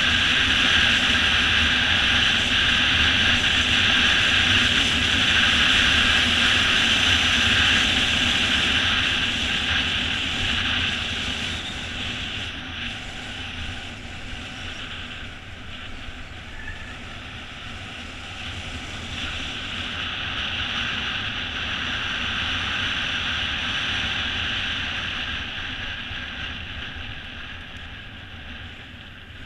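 Wind rushing over a GoPro's microphone together with the tyre roll of a mountain bike on asphalt: a steady rush that is loudest for the first ten seconds, eases, swells again a little after twenty seconds and fades near the end.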